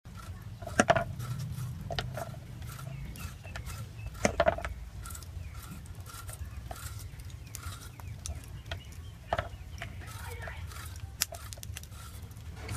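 Chickens clucking, with two louder calls near the start and faint repeated chirps behind them. Later come a few short, sharp scrapes of a hand shredder shaving a fresh bamboo shoot.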